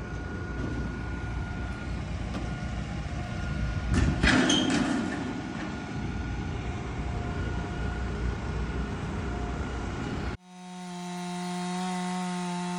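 A steady low rumbling noise with a faint whine, louder for a moment about four seconds in. After a sudden cut near the end, a chainsaw engine runs at high speed in one steady tone, its pitch starting to drop at the very end.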